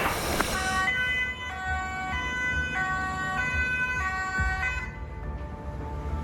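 Two-tone emergency-vehicle siren alternating between a high and a low note about every 0.6 s, cutting off about a second before the end, over a low vehicle rumble.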